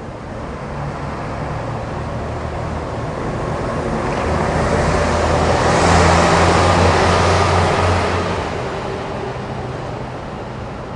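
A passing vehicle: a low engine hum and a rush of tyre noise build up, peak about six seconds in, then fade away.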